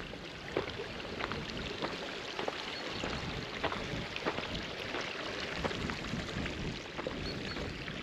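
Steady rush of a brook running over stones, with short sharp footsteps at a walking pace, about every two-thirds of a second.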